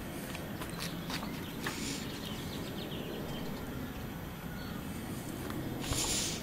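Water poured from a glass measuring cup onto a potted plant's soil, faint over a steady low outdoor rumble. A few soft clicks and a short hiss come early on, with another brief hiss near the end.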